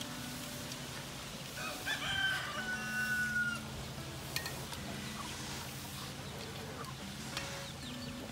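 A rooster crows once, about two seconds in, a call of roughly two seconds ending on a long held note, over a steady low hum.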